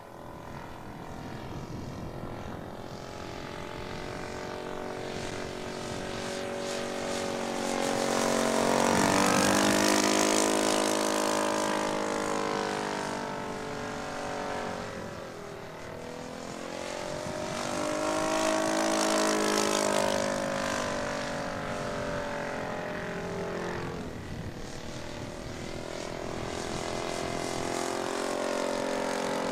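Laser 180 four-stroke glow engine of a large-scale model Tiger Moth biplane running in flight, with its propeller. It swells to its loudest twice as the plane passes close, about a third of the way in and again past the middle, and drops in pitch after each peak.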